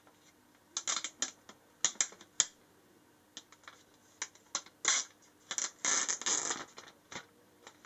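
Clear plastic protective film crinkling and crackling as it is handled and pulled off an iPad mini, in short scattered crackles that are densest around six seconds in.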